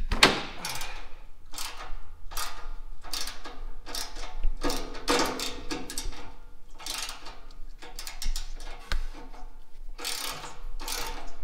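Hand ratchet wrench working a bolt on the Tacoma's front bumper area, clicking in a run of quick back-and-forth strokes with a short pause near the end.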